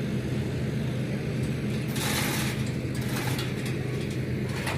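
Steady low hum of a 60 kVA diesel generator set running, with no change in pitch.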